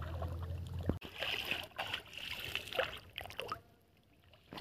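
Shallow water sloshing and dripping in short irregular splashes as a bamboo-framed lift net (sip jal) is worked through it, with a low steady hum in the first second; it goes quiet about a second before the end.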